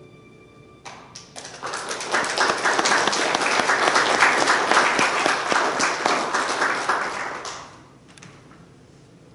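Congregation applauding: a few scattered claps about a second in swell into steady applause for several seconds, then fade out.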